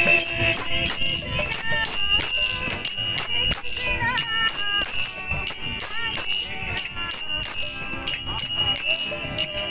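Kirtan music: voices chanting to the steady ringing of small hand cymbals (kartals) struck in rhythm.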